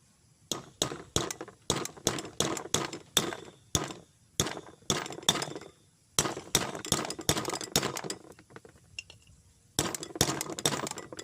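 Hammer tapping a nail into a melamine bowl to punch a drainage hole: quick sharp taps, about three a second, in runs broken by short pauses.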